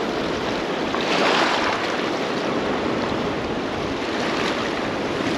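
Fast river running high over a rocky bed: a steady rush of water that swells briefly about a second in.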